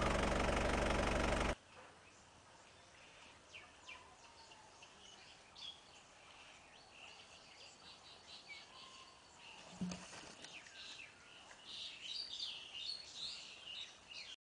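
A loud, steady engine-like drone cuts off suddenly about a second and a half in, giving way to quiet outdoor ambience with small birds chirping. Partway through, a single dull thump is heard as a wooden log knocked over by a baby elephant hits the ground.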